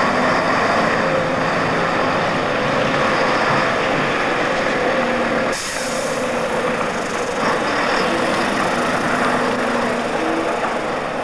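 Tractor-trailer's diesel engine running at low speed as the truck manoeuvres slowly on gravel. The sound shifts slightly about halfway through.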